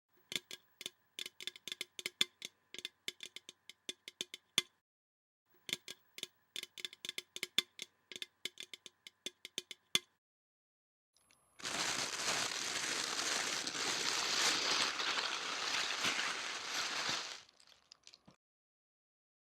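Foley effects made with everyday objects: two runs of rapid, irregular clicks with a ringing tone, then about six seconds of loud, steady rushing noise that stops abruptly.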